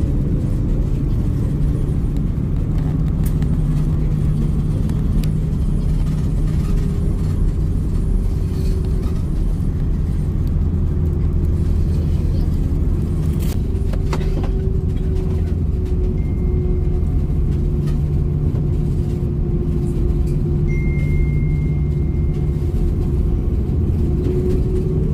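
Steady cabin rumble of an Airbus A330-900neo taxiing at low power, its Rolls-Royce Trent 7000 engines giving an even hum, heard from a window seat over the wing.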